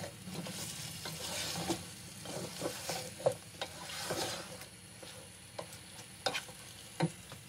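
Beef pieces frying in oil and butter with ginger-garlic paste, sizzling steadily. A wooden spatula stirs them, scraping and knocking against the pot every second or so.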